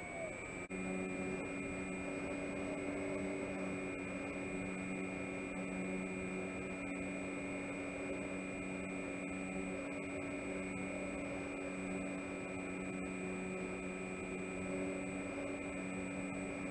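Electric motor and propeller of an FMS J-3 Cub RC model plane running at a steady throttle, a constant whirring hum with a faint high whine. A short drop in pitch and level comes about half a second in.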